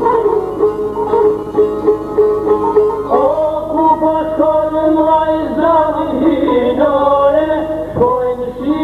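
Albanian folk music on long-necked plucked lutes, their notes picked in quick succession; about three seconds in, men's voices come in singing over the strings.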